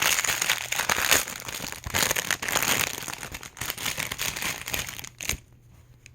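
Packaging crinkling and rustling as a small doll dress is pulled out of it by hand, ending with a sharp click about five seconds in.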